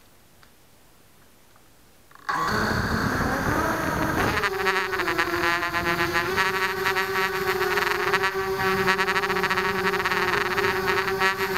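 Blade 200 QX quadcopter's four brushless motors and propellers spinning up suddenly about two seconds in. They whine upward in pitch for about two seconds as it lifts off, then hold a steady high whine while it climbs. Heard up close from the camera mounted on the frame.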